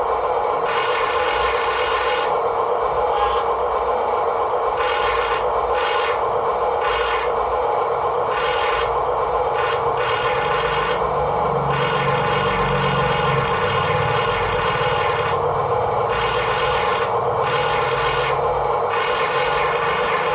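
Small electric motor of a toy excavator whining steadily, with a rasping scrape that starts and stops every second or so.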